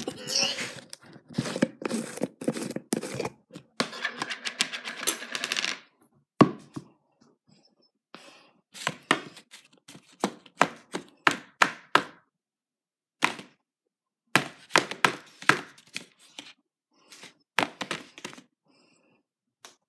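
Close handling noise from putting a sandwich together on a paper plate on a countertop. About six seconds of dense rustling and scraping come first, then a long run of sharp taps and knocks in clusters, separated by short pauses.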